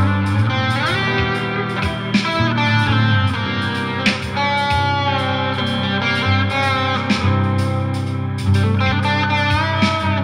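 Instrumental background music led by electric guitar, with bent, sliding notes over a steady bass line.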